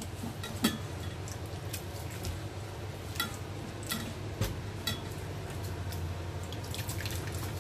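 Wet squishing and dripping as grated turmeric pulp is squeezed in a plastic-gloved hand over a stainless steel bowl, the juice running out, with scattered small drips and clicks over a steady low hum.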